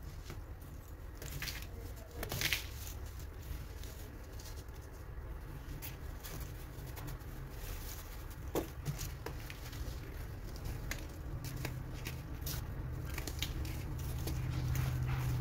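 Blocks of compacted baking soda being crushed and crumbled by hand: scattered crunches and crackles with powder pattering down. A steady low hum runs underneath and grows louder near the end.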